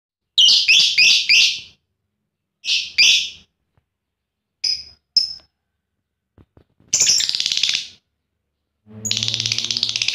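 Fischer's lovebird calling: a quick run of four shrill chirps, then two more, a couple of short notes, then two long rapid chattering trills near the end, the ticking trill that fanciers call ngetik.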